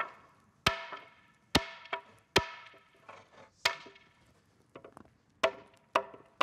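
Hammer blows on a long-handled iron set driving the iron tyre onto a wooden cartwheel's rim. There are about eight strikes at uneven intervals, two of them lighter, and each rings briefly like struck metal.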